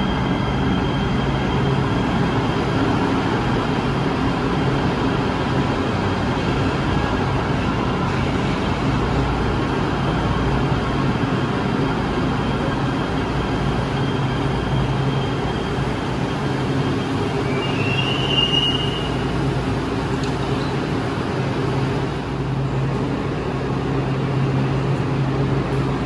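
LA Metro light rail train at an underground station: a steady low hum over constant rumbling noise, with one brief high squeal about 18 seconds in.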